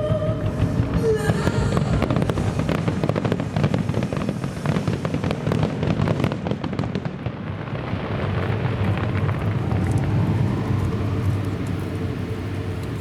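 Fireworks going off in a dense barrage of rapid, overlapping bursts and crackle. The barrage is thickest in the first half and eases off a little after about seven seconds.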